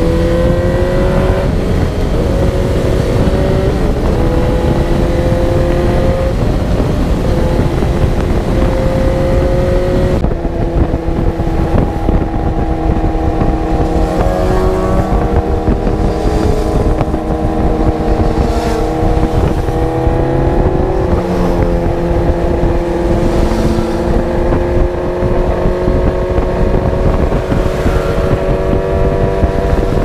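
Motorcycle engine running at a steady cruise, its note rising and falling a little, with wind noise on the microphone.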